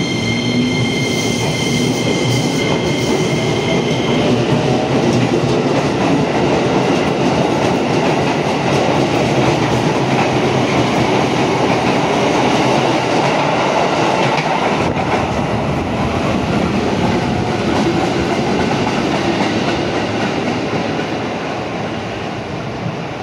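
Electric commuter train running past at close range as it pulls out and picks up speed. A steady high whine lasts about the first four seconds, then steady wheel-on-rail running noise takes over, fading near the end.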